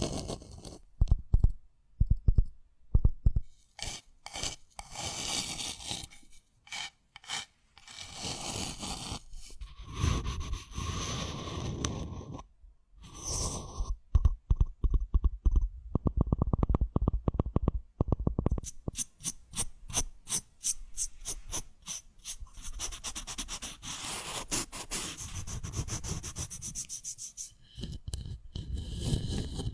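Close-miked ASMR trigger sounds: hands rubbing, scratching and scraping at an object, with sharp clicks and taps. About two-thirds of the way through comes a run of quick, even taps lasting a few seconds.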